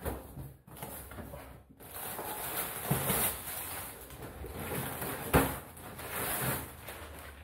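A parcel being unpacked by hand: cardboard and plastic wrapping tearing, crinkling and rustling in uneven bursts, with one sharp click about five seconds in.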